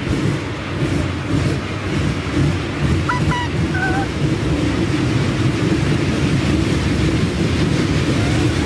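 Haunted-house ride train running along its track in a dark tunnel: a steady low rumble, with a few brief high squeaks about three to four seconds in.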